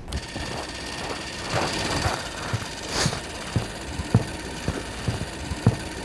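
Super 8 film camera running: a steady motor whirr, with irregular soft low thumps about once or twice a second.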